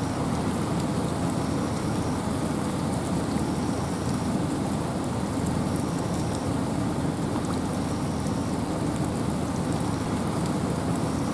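Steady rain and wind in a forest: an even, continuous hiss, heaviest in the low range, with scattered faint ticks of drops.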